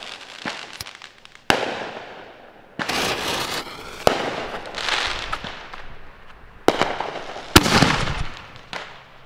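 A 4-inch Dynamite Fireworks Brick Breakers canister shell fired from a mortar tube: the fuse burning, the lift charge going off about four seconds in, then the shell bursting overhead in the second half as sharp reports, each trailing off.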